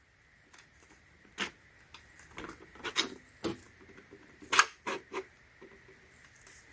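Metal sockets being pushed onto the posts of a socket organizer, about a dozen separate sharp clicks and knocks at an uneven pace, the loudest a little past halfway.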